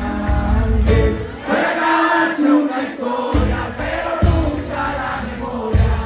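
Live band of electric guitars and drums playing a funk song, with singing. The low end and beat drop out for about two seconds near the middle, then come back in.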